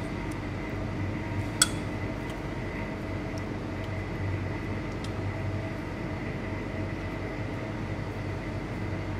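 Steady machine hum of a restaurant kitchen, with one light click about a second and a half in.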